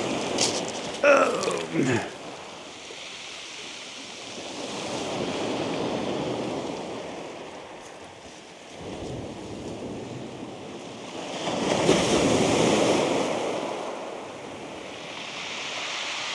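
Sea waves breaking and washing up a shingle beach, swelling twice, with wind on the microphone. About a second in there is a brief, louder sound that falls in pitch.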